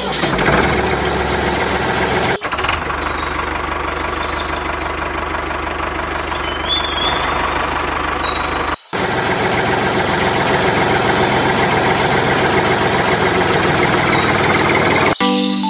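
Tractor engine running steadily with a fast, even chug, cut briefly about nine seconds in, with a few short high chirps over it; it gives way to music near the end.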